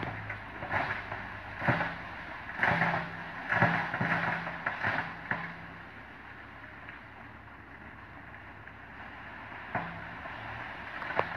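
Sumitomo SH130 excavator working gravel: its diesel engine runs under load while stones scrape and clatter in a string of bursts through the first half. The engine then settles to a quieter steady run, with two sharp knocks near the end.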